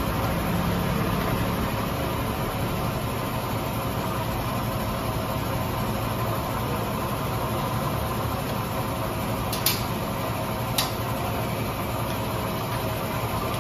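Steady machine hum throughout, with two sharp clicks about a second apart a little past the middle as the scooter's plastic rear inner fender is pried loose and pulled off.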